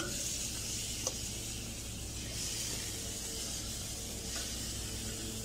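Marinated jumbo scallops sizzling steadily on a hot gas grill grate, over a low steady hum, with a small tick about a second in.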